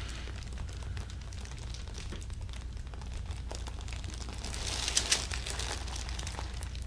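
Soft rustling and crinkling of clothing and the treatment-table covering as the patient is handled during chiropractic work, over a steady low hum, with a couple of sharp clicks about five seconds in.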